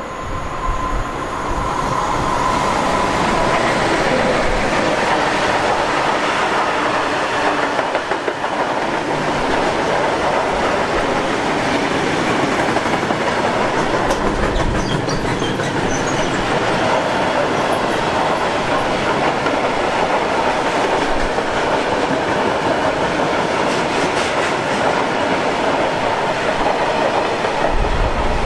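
A train running past on the rails, its wheels clattering. The sound builds over the first couple of seconds and then holds loud and steady.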